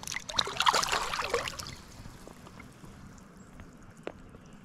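Water splashing for about two seconds near the start as a caught smallmouth bass is let go from the hand into shallow river water.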